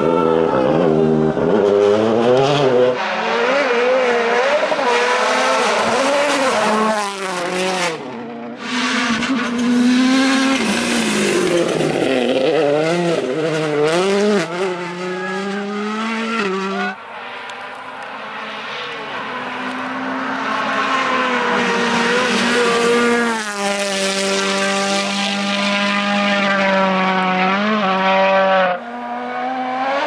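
Several World Rally Cars, each with a turbocharged four-cylinder engine, passing one after another. The engines rev hard and fall away repeatedly through gear changes and corners. In the second half one car's engine grows steadily louder as it approaches, then holds high revs at full throttle.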